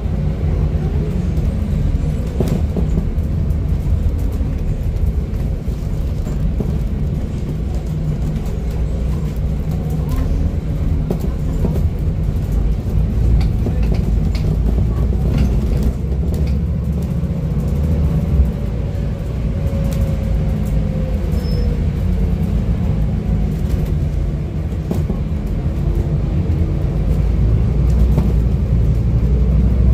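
Onboard sound of a Scania N250UD double-decker bus on the move: its five-cylinder diesel engine runs with a steady low rumble and a faint whine that rises and falls in pitch with road speed, plus occasional light rattles from the interior. It grows louder near the end as the bus pulls harder.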